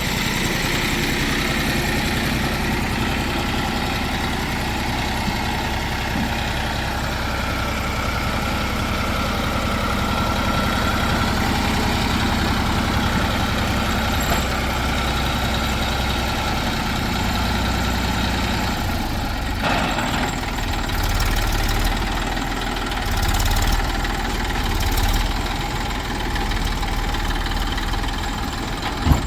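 Diesel engine of heavy farm or construction machinery running steadily at a low, even speed. Its note shifts about two-thirds of the way through.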